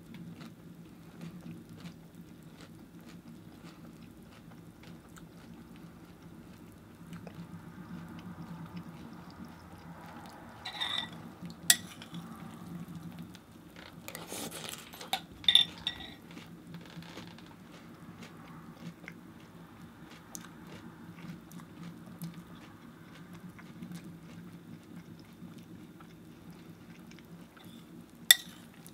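Eating a bowl of Cheerios: a metal spoon clinks sharply against the cereal bowl a few times, with quieter scraping and chewing of the cereal between. A steady low hum runs underneath.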